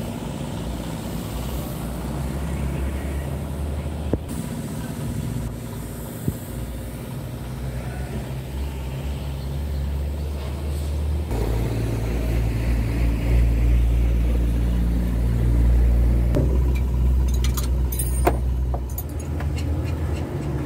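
A motor vehicle's engine running with a steady low rumble that grows louder about halfway through, with a few sharp clicks near the end.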